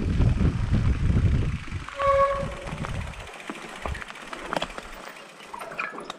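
Mountain bike descending a dirt trail: a loud low rumble of wind and tyre noise on the camera microphone that dies away after about a second and a half. About two seconds in there is a brief pitched squeal of the bike's brakes, followed by quieter rattles and clicks from the bike.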